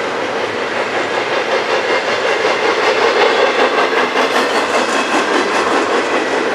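Union Pacific double-stack intermodal freight train's well cars rolling past: a steady rumble of steel wheels on rail, with a run of rhythmic clicks from the wheels over the rail joints from about halfway through, where it is loudest.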